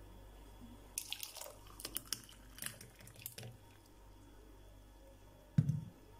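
Blended fruit juice poured from a blender jar into a glass mug: a run of splashes and drips in the first half, then the pour stops. Near the end there is one dull, heavy thump.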